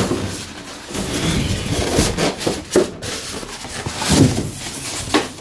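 A hand rubbing and bumping against polystyrene foam packing blocks, with irregular scrapes and a few knocks.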